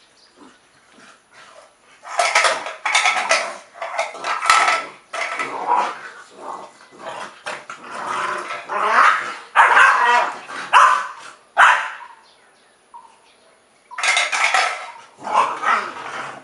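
Two young puppies play-fighting, barking and growling in quick, irregular bursts, with a lull in the middle.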